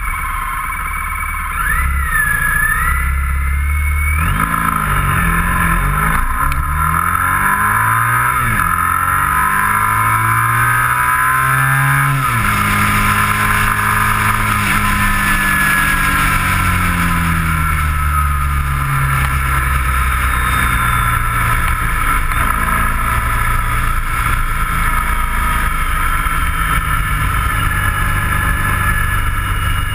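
Motorcycle engine pulling away from a stop, its revs climbing and dropping through several gear changes over the first dozen seconds, then running steadily at cruising speed with a constant rush of wind and road noise.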